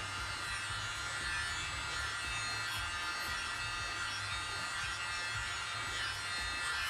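Tiny handheld electric air blower running steadily without its nozzle, its small motor giving a constant whine.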